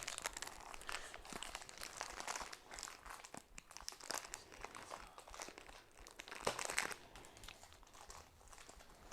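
Plastic toy packaging crinkling and crackling in irregular bursts as it is handled and pulled at to get it open, with a louder flurry of crackles near the end.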